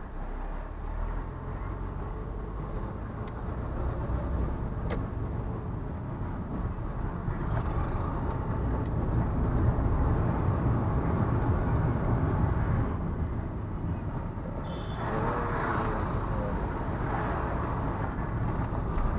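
A vehicle driving along a road: steady low engine and tyre rumble, swelling a little in the middle, with a brighter rush of noise about three-quarters of the way through.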